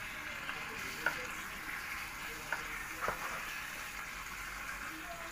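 Chicken pieces sizzling in hot oil in a nonstick electric cooking pot while being stirred with a wooden spatula, the raw chicken just starting to sauté with garlic and onion. A few sharp knocks of the spatula against the pot come about a second in and again around two and a half and three seconds in.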